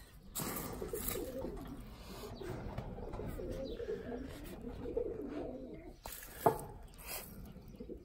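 Dove cooing steadily in the background, low and repeated, with a single sharp click about six and a half seconds in.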